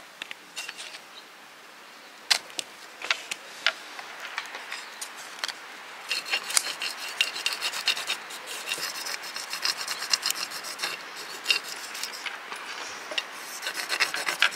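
Small wooden stick scraping a rub-on decor transfer onto a painted terracotta pot, a quick rasping scratch as the design is rubbed down. A few scattered taps and scratches come first, then steady rapid back-and-forth scraping from about six seconds in.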